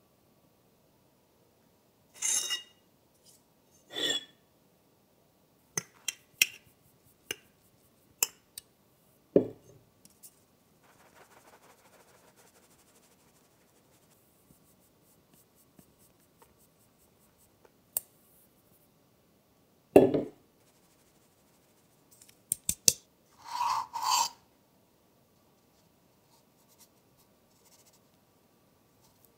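Flour sifted through a metal sieve into a plastic bowl: scattered knocks and clinks as the sieve is handled and tapped, with a soft rustle of flour falling through the mesh for a few seconds after the first third.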